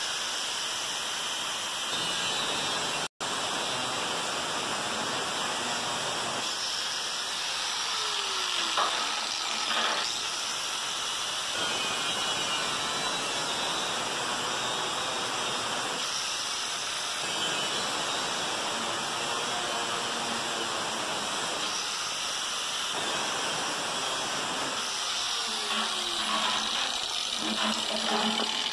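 Angle grinder's cutting disc cutting through the thin steel of a washing-machine spin drum: a steady, high, hissing grind that runs almost without break, with a momentary cut-out about three seconds in.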